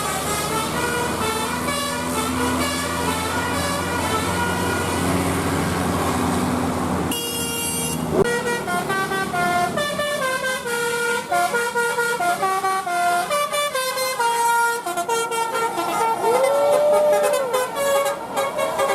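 Indonesian tour bus 'telolet Basuri' musical air horn playing a tune in quick stepping notes, with a few notes gliding up and down near the end. For the first seven seconds or so, held horn tones sound over the bus engine's low running, and the sound changes abruptly about seven seconds in.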